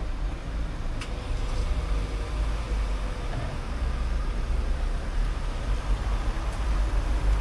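Road traffic moving off: car engines and tyres as vehicles pull away across the level crossing, under a heavy low wind rumble on the microphone. A single sharp click about a second in.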